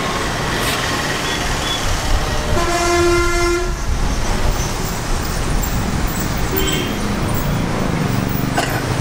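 Road traffic running steadily, with a vehicle horn sounding once on a single steady note for about a second, about three seconds in.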